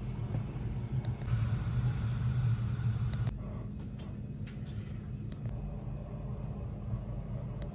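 Passenger train running, heard from inside the carriage: a steady low rumble of wheels on rails, with the higher hiss easing off about three seconds in and a few faint clicks.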